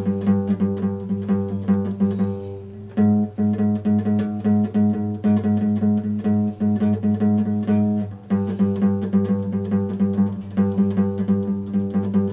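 Epiphone acoustic guitar played solo, a steady stream of plucked notes ringing over held bass notes. It changes chord about three seconds in and again about eight seconds in.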